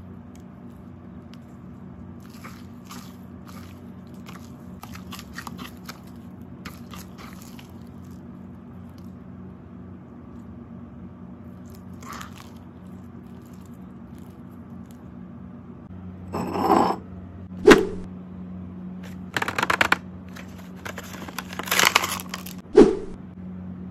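Blue slime packed with foam beads and glitter squeezed and stretched by hand, giving faint scattered crackles and pops. About two-thirds through come louder crunching and crinkling bursts with a few sharp cracks, as a clear plastic toy package is pushed into the stone mortar and crushed. A faint low hum runs underneath.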